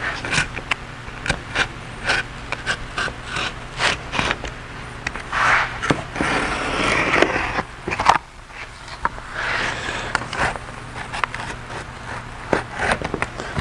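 Razor knife slicing through cardboard on a wooden bench: stroke after stroke of scraping cuts along a curved line, mixed with short sharp clicks and taps of the blade. The longest scraping strokes come around the middle.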